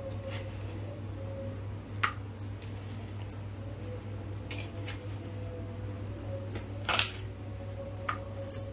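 Raw chicken pieces handled by hand and set into a plastic bowl of yogurt marinade: scattered light clicks and clinks, the loudest about seven seconds in, with glass bangles clinking on the wrist, over a steady low hum.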